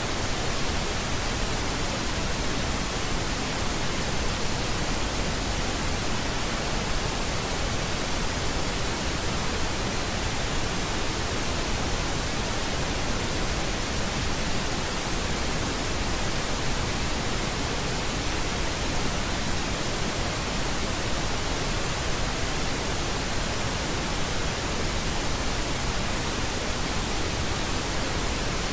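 Steady pink noise: a constant, even hiss spread across all pitches, unchanging throughout.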